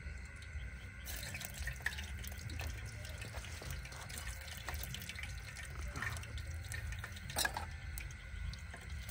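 Tadka frying: food and spices sizzling and crackling in hot oil. The hiss comes on about a second in and goes on with scattered sharp crackles over a steady low hum.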